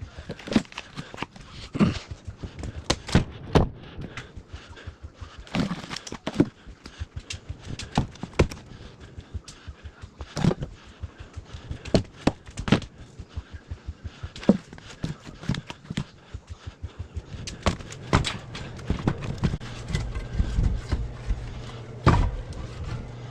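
Firewood being handled: split logs knocking and thudding against one another in an irregular series of sharp knocks. A low steady hum comes in near the end.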